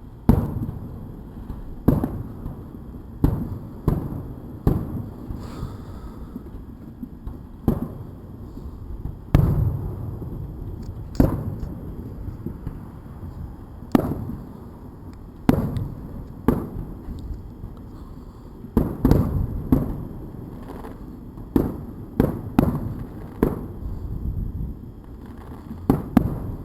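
Fireworks going off: sharp bangs every second or two, some in quick pairs, each followed by a low rumbling echo.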